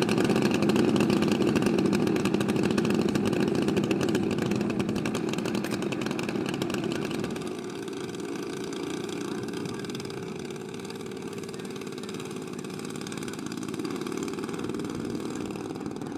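Twin engines of a giant-scale radio-controlled Grumman S-2 Tracker model running steadily at low power. About halfway through the sound drops suddenly to a quieter, steady engine sound as the model taxis on the runway.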